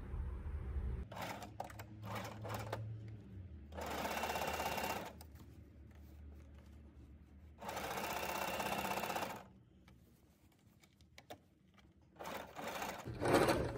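Janome sewing machine running in two short spells of straight stitching, each about a second and a half, sewing fabric along a zipper.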